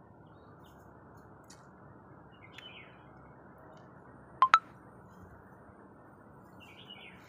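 Two sharp clinks in quick succession about four and a half seconds in, the loudest thing here, over a faint steady hiss. A few faint high chirps come before and after them.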